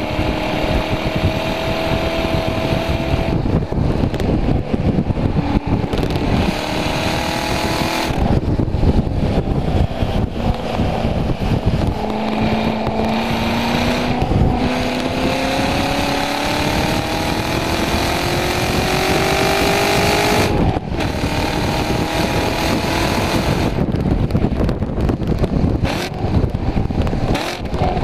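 Chevrolet Corvette C7 Grand Sport's 6.2-litre LT1 V8 heard from inside the cabin under hard track driving, its pitch climbing again and again as it pulls through the revs. The longest climb lasts about eight seconds and cuts off sharply about twenty seconds in.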